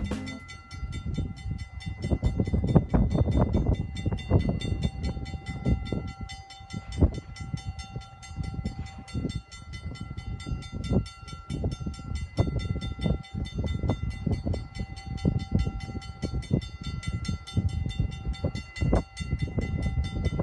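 An electric trolley car runs along the track toward the listener. Steady high-pitched tones are held throughout, over a low rumble broken by irregular knocks.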